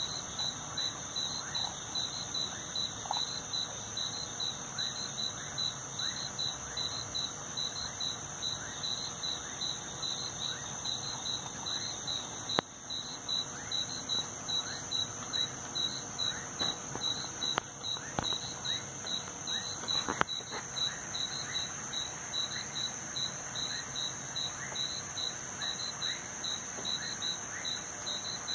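Night-time chorus of crickets and other insects: a steady high-pitched drone with a quick, evenly pulsing chirp over it, and faint short falling calls beneath. A few sharp clicks sound about halfway through.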